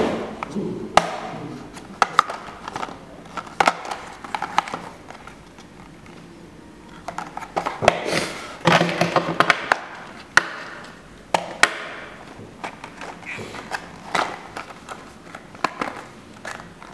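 Small cardboard boxes of Tomix model railway containers being handled and set down on a wooden table: a string of sharp taps and knocks, with a longer stretch of boxes sliding and rustling about halfway through.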